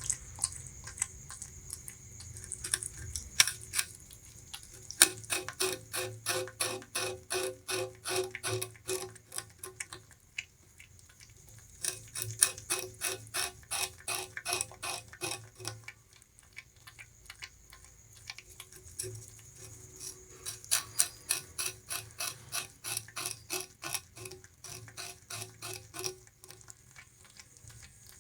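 Bamboo rat gnawing sugarcane: rapid, crisp crunching clicks, several a second, in three long spells with short pauses between them.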